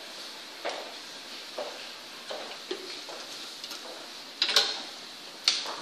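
Hairdressing tools being handled at a styling station: light taps and clicks, then two sharper clatters near the end as tools are picked up from the trolley.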